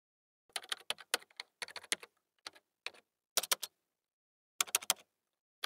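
Typing on a computer keyboard: quick runs of sharp keystroke clicks in about five bursts, with short pauses between them.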